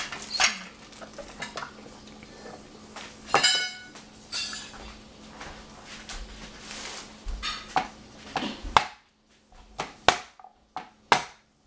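Kitchen utensils handled on a countertop: scattered clicks and knocks of a cleaver and garlic cloves against a plastic cutting board, with one ringing clink about three and a half seconds in. Near the end come a few separate sharp knocks with quiet between them.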